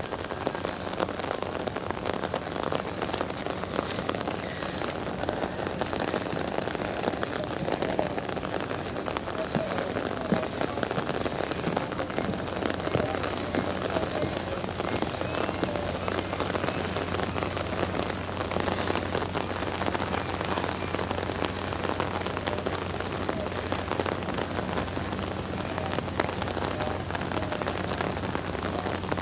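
Steady rain falling, with many individual drops ticking close to the microphone.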